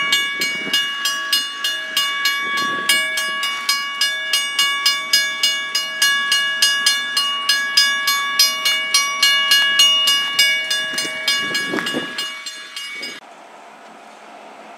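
Railroad grade-crossing warning bell ringing steadily at about three to four strikes a second, then cutting off abruptly near the end, after which only a faint steady background noise remains. The crossing's gate arm is knocked down and broken.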